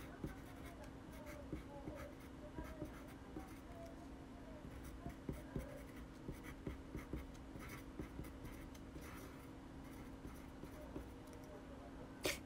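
Graphite pencil writing on a small piece of paper: light, irregular scratching strokes and ticks of the lead, over a steady low hum. A sharper click comes near the end.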